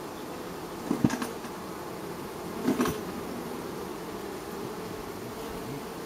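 Honeybee colony buzzing at a crowded hive entrance, a steady low hum of many bees, louder twice: about a second in and again near the three-second mark.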